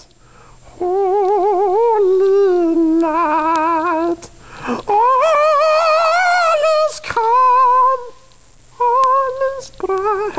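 A voice humming wordless, wavering notes with a strong vibrato, in several phrases broken by short pauses. The middle phrase is pitched higher than the others.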